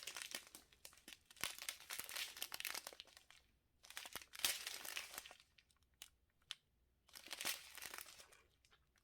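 Small plastic packs of diamond-painting drills crinkling as they are handled, in four spells of a second or two with short pauses between.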